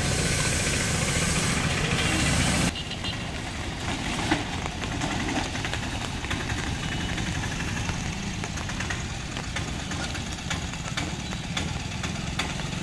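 Small engine of a three-wheeled cargo autorickshaw running as it drives slowly over a rough, waterlogged road. A louder hiss over the first few seconds cuts off suddenly, leaving a quieter running engine with light clatter.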